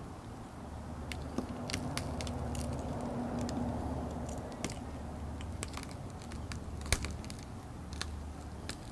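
Shattered iPad screen glass crackling and cracking as it is pried away from its adhesive: irregular sharp clicks and snaps, one louder crack about seven seconds in.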